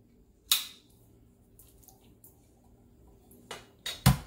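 A metal can of condensed cream of chicken soup being emptied. About half a second in there is one sharp metallic scrape as the pull-tab lid comes off. Near the end comes a thud, then the start of rapid knocking, about six a second, as the upturned can is knocked to shake the thick soup out into the slow cooker.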